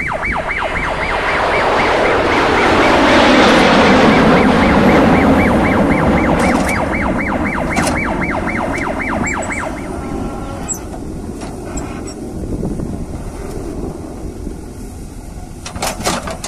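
JCB 3DX backhoe loader's diesel engine running under load as it digs, growing louder for a few seconds early on. Over it, for roughly the first ten seconds, a fast warbling siren-like tone repeats about three times a second, then stops.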